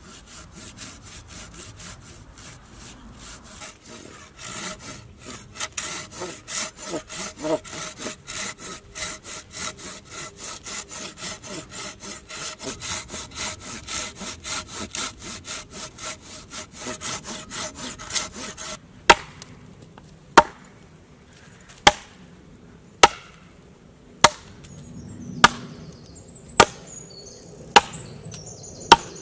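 A hand saw cutting into a log in quick back-and-forth strokes. About two-thirds of the way through the sawing stops and an axe starts chopping into the log, about nine single sharp chops roughly a second apart, knocking out the wood between the saw kerfs.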